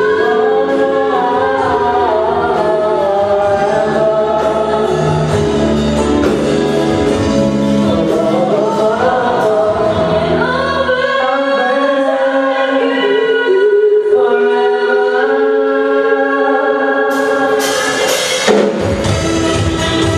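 Live band playing a song with sung vocals over a loud PA. About halfway through, the bass and drums drop out, leaving the voices and higher instruments. The full band with cymbals comes back near the end.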